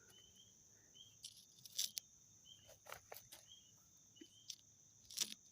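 Steady high trilling of insects, with short repeated chirps over it. Several short scratchy strokes come through, the strongest about two seconds in and near the end: a coin scraping the latex off a lottery scratch-off card.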